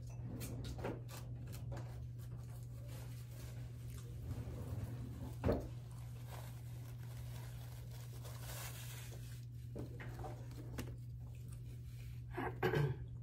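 Small handling sounds at a desk: rustling and tearing with scattered sharp clicks, the loudest click about five and a half seconds in, over a steady low hum. Near the end a plastic fork scrapes in the aluminium foil pan of baked penne.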